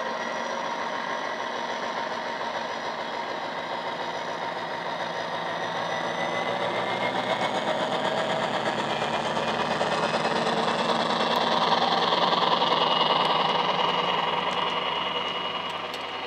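Bachmann OO gauge Class 57 model locomotive's ESU LokSound decoder playing a diesel engine sound through its EM1 speaker as the model pulls a train of wagons. A whine rises in pitch in the first few seconds, the sound is loudest about 12 seconds in as the loco passes, and a few light clicks come near the end.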